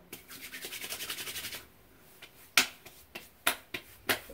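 Palms rubbed briskly together for about a second and a half, then several sharp pats of the hands on the face, spreading menthol aftershave after a shave.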